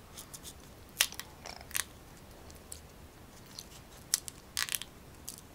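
Kitchen knife cutting into a crisp young green mango, a series of short sharp crunches and cracks in two clusters, about a second in and again about four seconds in.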